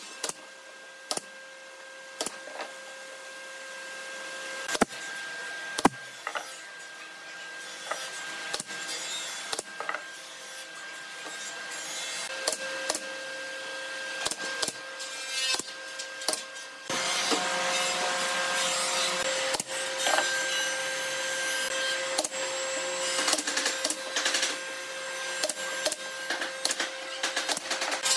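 Pneumatic brad nailer firing brads into pine slats: sharp single shots every second or few. Under them is a steady machine hum that gets louder about two-thirds of the way through.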